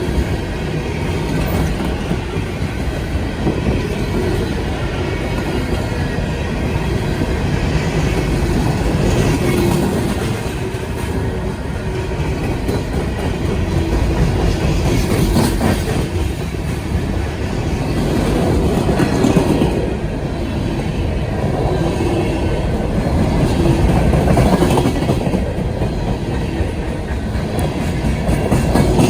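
Freight cars of a Norfolk Southern coal train rolling past, their steel wheels running on the rails with a steady rumble and clatter.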